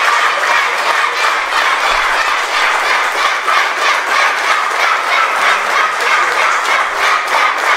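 Theatre audience and cast applauding: dense, steady clapping of many hands.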